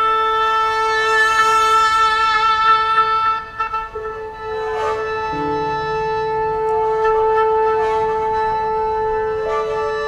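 Contemporary chamber music: wind instruments and a bowed fiddle holding long notes layered over one another, with a brief lull about three and a half seconds in before new held notes enter.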